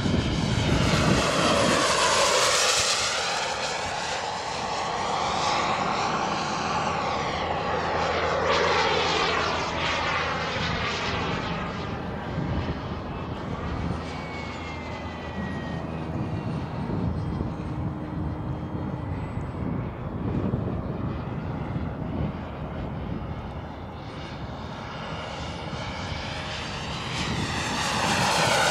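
Aircraft engine noise that swells and fades several times, loudest near the start and again near the end.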